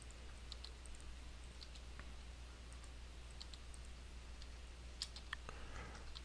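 Faint computer mouse and keyboard clicks, several scattered over the seconds, over a low steady hum.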